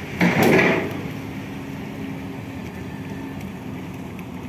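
Steady low engine hum from vehicles or ships idling at a ferry dock, with a faint held tone, after a brief loud noise just after the start.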